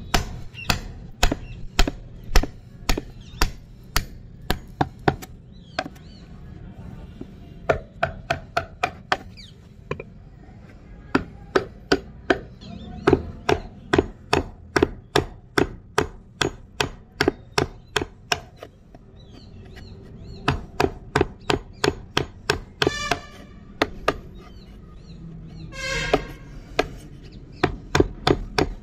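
Narrow steel chisel being struck repeatedly as it cuts into a wooden board: sharp knocks about two to three a second, in runs broken by short pauses.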